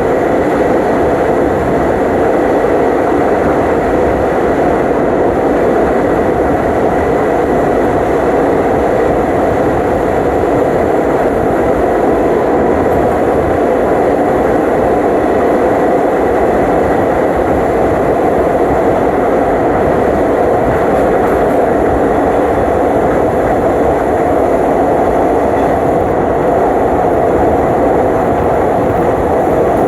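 Passenger train running steadily along the track: a constant loud rumble and rush of wheels on rail, with a faint steady whine.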